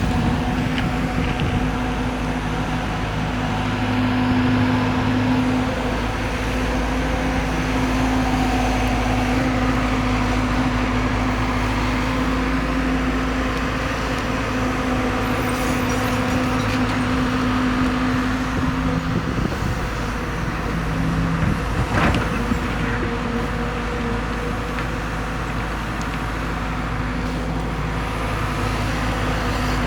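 Hyundai R140LC-9 crawler excavator's diesel engine running steadily while it works, its tone shifting now and then as the load changes. There is one sharp knock about two-thirds of the way through.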